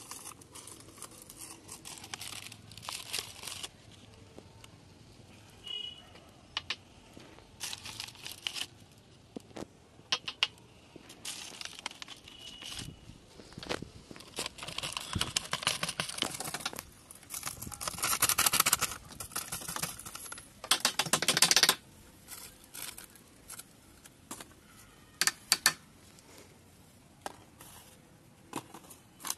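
Plastic pesticide sachet crinkling and rustling in the hands as it is opened and handled, in irregular bursts with short clicks between.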